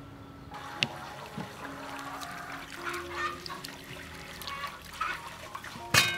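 Water sloshing and splashing in a metal bowl as peeled fruit is rubbed and turned by hand, with small clicks of fruit against the bowl and a sharp knock near the end.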